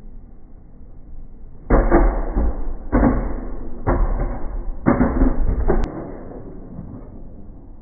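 Small plastic toy trains sliding and rattling down the inside of a plastic tube slide, a hollow rumbling clatter in four bursts of about a second each that stops abruptly near the end.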